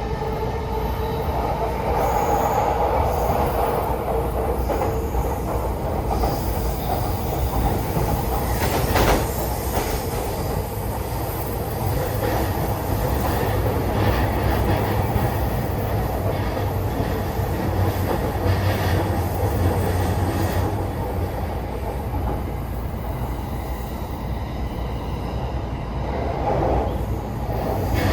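Interior running noise of a Chuo Line rapid electric commuter train in motion: a steady rumble of wheels on rail heard from inside the carriage, with a single sharp clack about nine seconds in.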